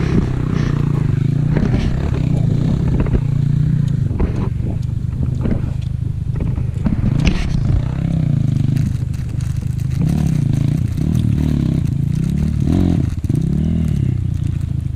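Dirt bike engine running close by, mostly steady, then revving up and down several times in the last few seconds, with clattering and knocks from the bike working through mud.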